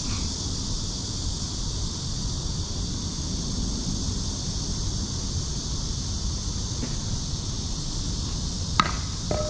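Wind buffeting the microphone over a steady high-pitched hiss, with one sharp crack near the end.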